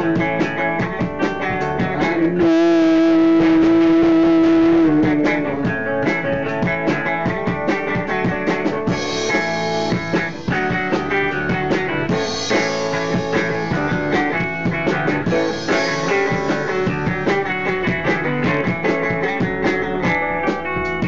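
Punk band playing an instrumental passage at practice: electric guitar and drum kit together, with a long held note about two seconds in and repeated cymbal crashes in the second half.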